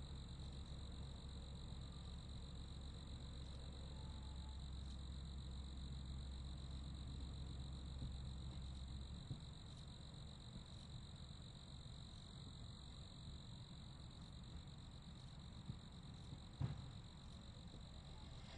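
Crickets chirping in a steady, unbroken high trill. A low hum underneath stops about halfway through, and a single faint knock sounds near the end.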